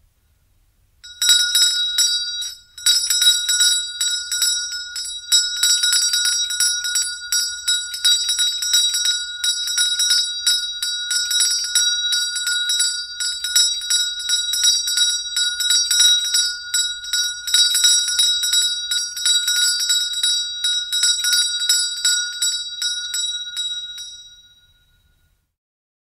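Old-fashioned door bell ringing continuously on one medium note, its clapper striking rapidly. It starts about a second in, breaks off briefly just before three seconds in, and stops near the end with a short ring-out.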